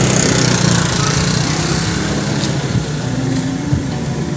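A small engine running steadily nearby, a constant drone with no change in speed.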